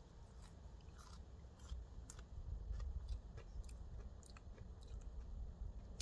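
A person chewing a raw stem of a wild thorny plant called yağlı diken: faint, crisp, irregular crunches.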